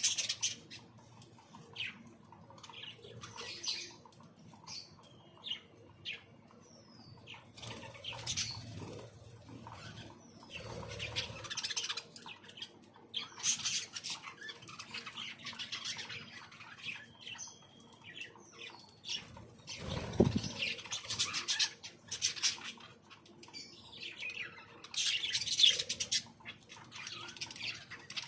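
Aviary birds calling in short bursts of chirps and squawks, mixed with wing flutters. A dull thump comes about twenty seconds in.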